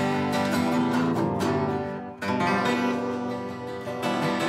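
Several acoustic guitars strummed and picked together, playing a song; the sound dips briefly about two seconds in, then carries on.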